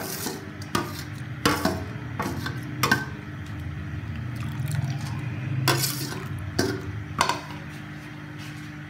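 A slotted metal spoon stirring rice in a large metal pot of water, clinking sharply against the pot several times, with a steady low hum underneath.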